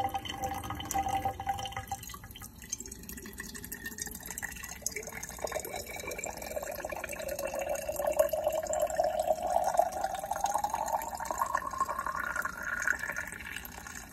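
Tap water running into a Novarossi nitro exhaust pipe held under a faucet over a stainless steel sink. From about halfway through, the pitch of the filling rises steadily as the pipe fills up.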